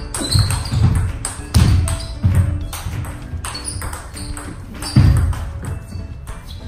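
A table tennis rally: the celluloid ball clicking off rubber paddles and the table in quick exchanges, over background music with a heavy bass beat, which carries the loudest thumps.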